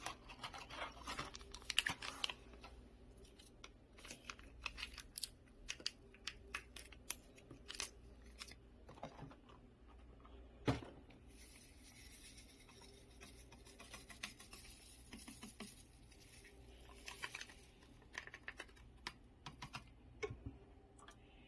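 Faint handling noises of a paper box and a powder stick sachet: rustling, small clicks and taps, and the sachet torn open, with one sharper knock about eleven seconds in.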